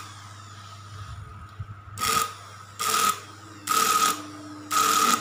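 Food processor's brushed universal motor, bare on the bench with its cooling fan, switched on in four short runs about a second apart from about two seconds in, each a whirring whine with a hiss. A steady low hum sits between the runs. The motor has a faulty armature, behind its slow running and heavy sparking at the carbon brushes.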